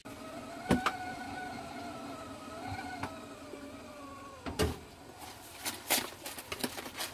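A steady hum with a slightly wavering pitch from the stove top, with a few light clicks. About four and a half seconds in there is a knock as a cardboard box of stuffing mix is picked up off the counter, then quick clicks and rustles of the box being handled.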